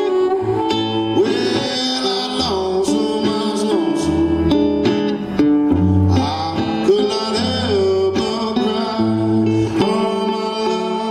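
Acoustic blues on resonator guitar and harmonica, played as an instrumental break. The harmonica holds and bends its notes over the guitar's repeated low bass notes.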